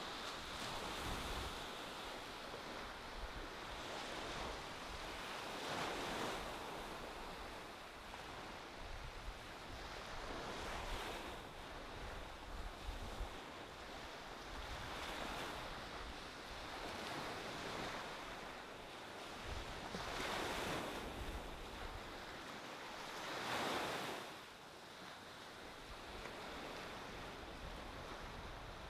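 Calm ocean surf breaking and washing onto a sandy beach. Each wave swells up and fades every few seconds.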